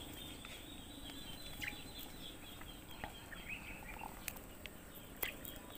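Faint outdoor ambience with scattered small bird chirps, and two sharp clicks in the second half.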